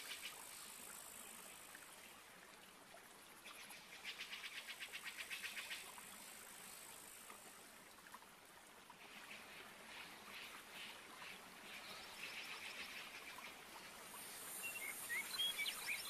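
Faint Amazon rainforest ambience: rapid pulsing trills of calling animals come and go, over a thin high insect buzz, with a few short bird chirps near the end.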